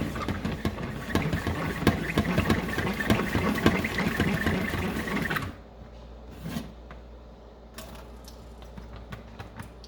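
Salad spinner whirring with a fast, dense clicking rattle as it spins rinsed lettuce dry. It cuts off suddenly about five and a half seconds in, leaving only a few faint knocks.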